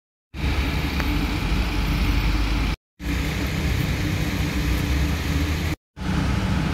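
Steady low rumble of idling vehicle engines with street traffic noise, broken twice by brief total silences.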